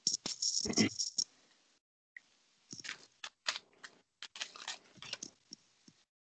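Rustling and light clicking from hands handling fly-tying materials near the microphone, in irregular bursts. The sound drops to dead silence between bursts, as video-call audio does when it gates out quiet passages.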